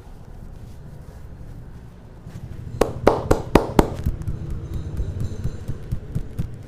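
Neck joints cracking during a neck adjustment: a quick run of about five sharp pops within about a second, near the middle, over a low steady hum.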